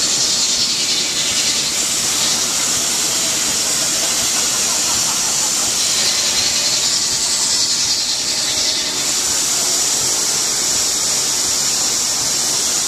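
A loud, steady hiss that fades away near the end.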